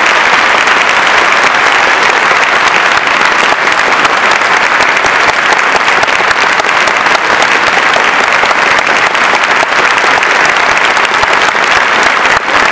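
Concert audience applauding steadily, a dense, even clapping at the close of an orchestral piece.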